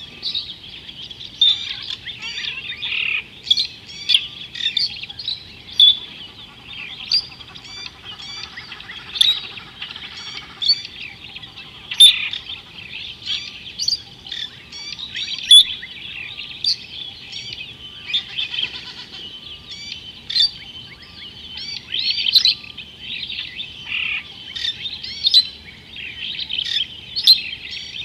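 A dense chorus of small birds chirping: many short, high calls overlapping without pause, with louder sharp chirps standing out every second or so.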